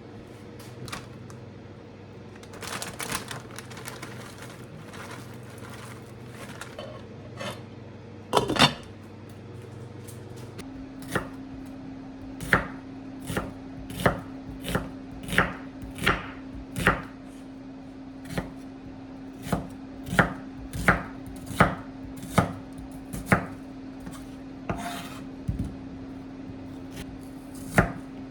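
Kitchen knife chopping food on a cutting board: scattered strokes at first, then a steady run of one to two strokes a second through the middle. Underneath is a steady low hum that drops in pitch about ten seconds in.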